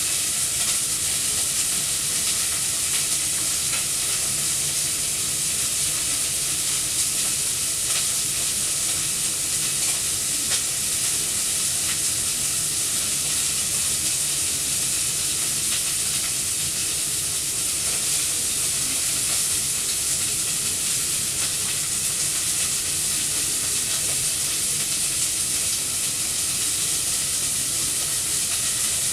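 Steady, even hiss, strongest in the high range, with faint scattered ticks.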